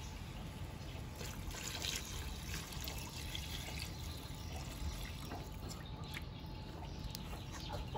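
Climbing perch in fish sauce cooking in a pot, with a soft irregular sizzle and bubbling of the liquid and scattered small crackles.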